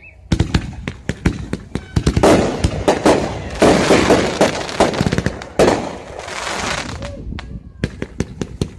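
Fireworks display: aerial shells go off in a rapid series of sharp bangs starting just after the beginning. The bangs thicken into a dense, overlapping crackle for several seconds, ease off, then a few more sharp pops come near the end.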